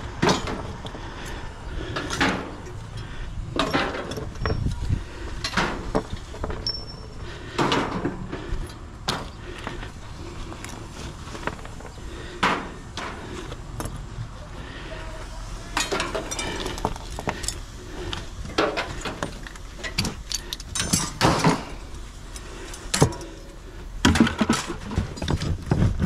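Pieces of scrap metal being tossed by hand onto a scrap pile, with irregular clanks and bangs every second or two.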